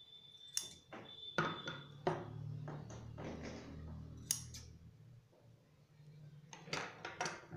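Scissors being handled with thin fabric, about six sharp metallic clicks spread through, with soft rustling of the fabric in between.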